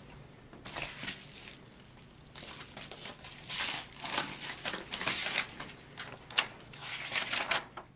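A yellow padded paper mailer envelope being torn open and handled, crinkling in irregular bursts, louder in the middle, then the sheet of paper inside being pulled out and unfolded.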